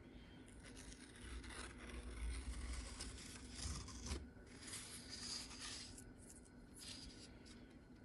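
Tape being peeled off the edge of watercolor paper in several slow pulls, with the paper rustling and scraping against the table.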